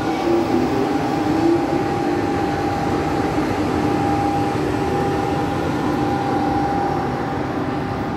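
TGV high-speed train's power car moving past close by: a steady rumble with a constant whine over it, easing slightly near the end as it draws away.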